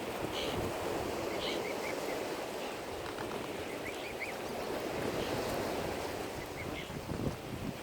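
Steady wash of lake water and wind, with faint short high chirps of birds several times, in small clusters.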